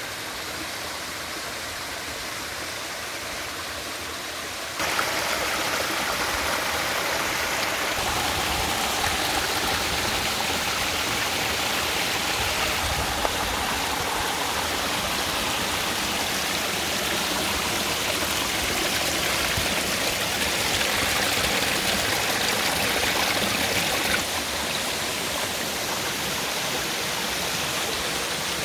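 Steady rush of a waterfall and its stream. It steps up louder about five seconds in and eases slightly near the end.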